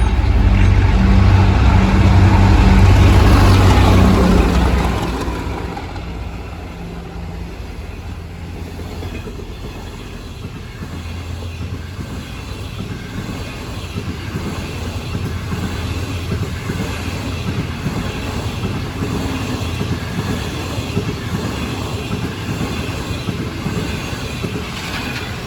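A diesel locomotive passing with its engine running loudly for about the first five seconds, then fading. After that, railway cars roll past with a steady rumble of wheels on rail.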